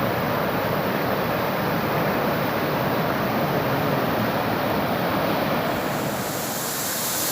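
Waterfall rushing: a steady, even roar of falling water, turning hissier about six seconds in.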